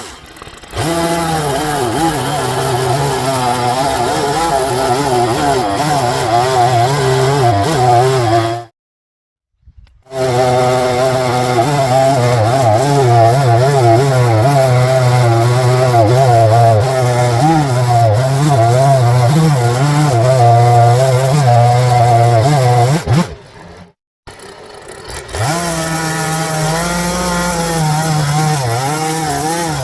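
Gas chainsaw running at high revs and cutting into a wooden stump, its engine pitch wavering up and down as the chain bites and eases. The sound cuts out completely twice, about a third of the way in and again near the end.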